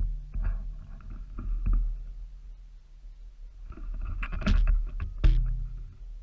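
Handling noise from a GoPro mounted on a bow as the bow is moved around in a treestand: rustling and scraping with sharp knocks, loudest in a cluster between about four and five and a half seconds in. A steady low hum runs underneath.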